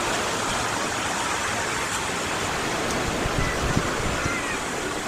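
Sea of Azov surf washing steadily onto the shore, an even hiss of small waves, with a slightly fuller surge about three and a half seconds in.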